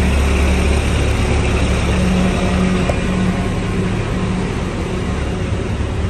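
Diesel engine of a bus running right alongside, a deep steady rumble with a droning hum over general street traffic noise; the rumble eases a little after about two seconds.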